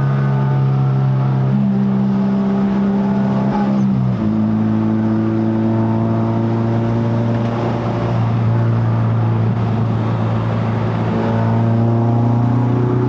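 Honda K24A four-cylinder engine in a Civic FD2, running through a straight-pipe stainless exhaust while driving. The engine note is steady, drops sharply in pitch about four seconds in, then holds with a slight rise near the end.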